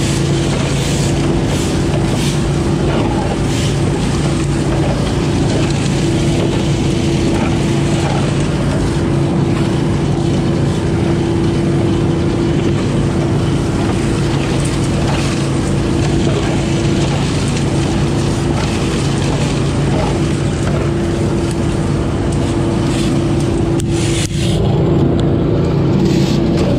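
20 hp Billy Goat leaf loader running steadily, its engine and fan droning on one note, with leaves rushing up the suction hose in a constant roar of air. Near the end the sound dips for a moment and then comes back a little louder.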